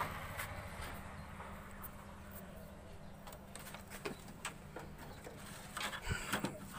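Faint clicks and knocks of a TV power-supply circuit board and its wires being handled, mostly in the second half, over a steady low hum.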